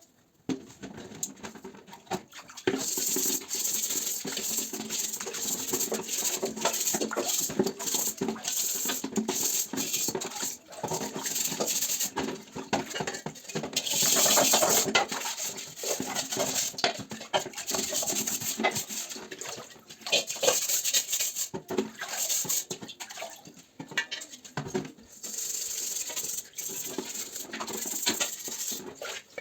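Hand scrubbing and scraping on the steel shell of a German M35 helmet as it is cleaned: dense, irregular scratching and clicking, with brief pauses.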